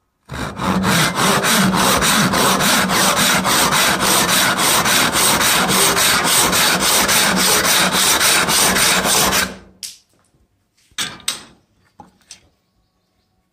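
Hand saw cutting through a wooden board in quick, even back-and-forth strokes that stop after about nine seconds, followed by a couple of short knocks.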